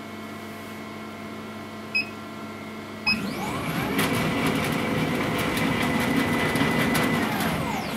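Laser cutter's motorised Z-axis table being driven down on its lead screws for about five seconds: the stepper motor's whine rises as it speeds up, holds steady, then falls as it slows to a stop, with the table vibrating as it travels. Two short beeps come just before the move starts, over a steady background hum.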